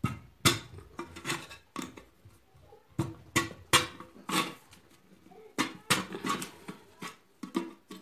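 Hand tool working at the lid of a tin-can coin bank to pry it open: a string of irregular sharp metallic clicks and scrapes, about a dozen, with a short lull a little past the middle.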